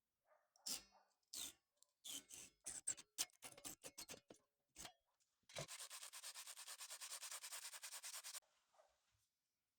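A run of light taps and clicks, then a fast, even rubbing or scraping for about three seconds, typical of hand work with an abrasive or tool on the hatchet.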